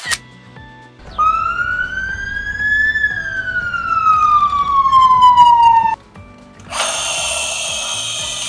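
Toy police car's electronic siren, set off by a button click: one slow wail that rises, then falls, and cuts off abruptly. A harsher, noisy electronic sound starts near the end.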